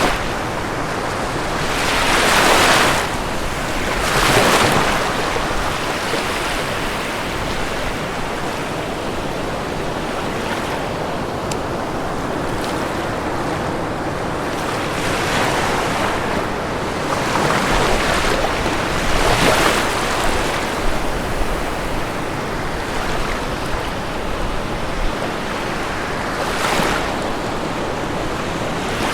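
Ocean waves breaking on a shore over a steady background wash of surf, with several louder breakers at irregular intervals.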